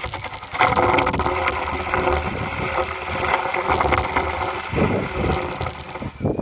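Phone microphone rubbed and scraped against rough tree bark: dense crackling and scraping handling noise over a low rumble, louder from about half a second in.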